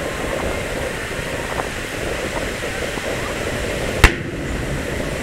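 An aerial firework shell bursting with a single sharp boom about four seconds in, over a steady background noise.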